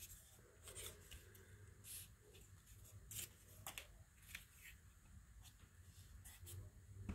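Faint rustling and light ticks of paper strips being handled and pressed down on a tabletop, over a low steady hum.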